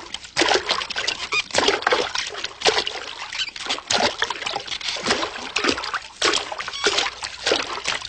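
Cartoon sound effects of water splashing: an irregular run of short splashes, several each second.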